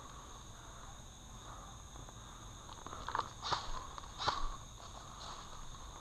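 Footsteps crunching through dry leaf litter on a forest floor, a few steps starting about three seconds in, over a steady high drone of insects.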